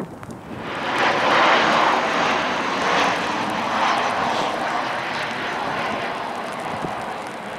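Jet engines of a Ryanair Boeing 737-800 on final approach with its gear down, passing close by: a broad rushing engine noise that swells within the first couple of seconds and then slowly fades.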